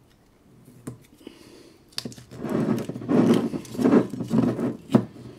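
Cork stopper of a whisky bottle being twisted and worked out of the neck: a couple of seconds of loud rubbing and creaking, with a few sharp clicks and a last click about five seconds in.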